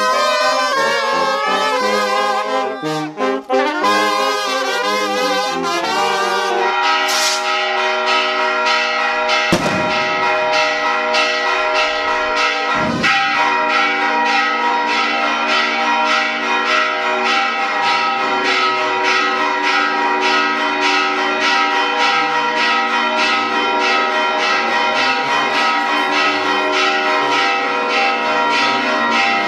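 Brass band of trumpets and trombones playing a tune for about the first six seconds. It then cuts abruptly to church bells rung rapidly and continuously in a fast, even rhythm.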